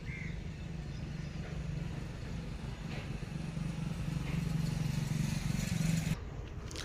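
Road traffic with a steady engine hum that grows louder as a motorcycle passes close by, then cuts off suddenly about six seconds in.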